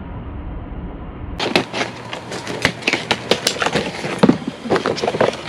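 A muffled low rumble, then from about a second and a half in a rapid, irregular run of clicks, clatters and knocks.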